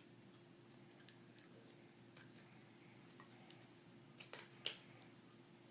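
Faint, sparse plastic clicks and taps from fiddling with a small plastic toy package while trying to twist it open, the loudest click a little before the end.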